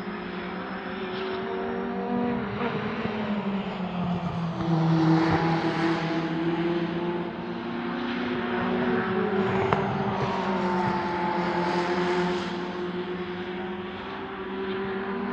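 Several race car engines running at once on track, their overlapping engine notes drifting up and down in pitch.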